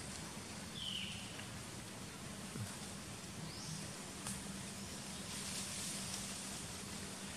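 Outdoor ambience among trees: a steady hiss with a faint low hum. A short falling high chirp comes about a second in, a rising one midway, and a faint click after that.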